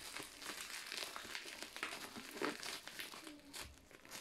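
Bubble wrap and plastic packaging crinkling and rustling irregularly as it is handled and pulled open by hand.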